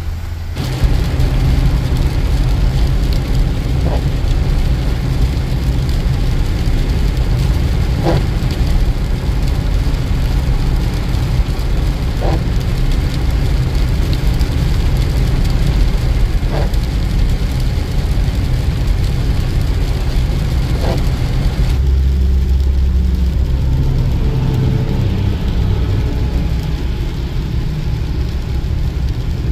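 Inside the cab of a Ford Power Stroke diesel pickup at highway speed on a wet road: a steady low rumble of engine and tyres with tyre hiss. The windshield wipers sweep faintly about every four seconds. About two-thirds of the way through the rumble turns deeper and duller.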